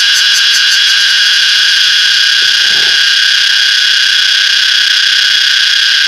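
Cicada calling at close range: a loud, continuous high-pitched buzz. About five pulses a second in its top notes fade out about a second in, leaving a steady drone.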